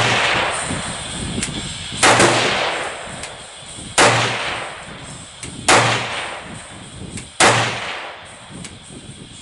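AK-pattern rifle in 7.62×39mm fired in slow single shots, about five of them, one every couple of seconds. Each shot trails off in a rolling echo.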